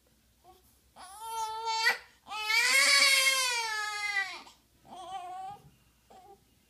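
Newborn baby crying in three wails: a shorter one about a second in, a long, loud one that rises and falls from about two and a half seconds, and a weaker one near five seconds.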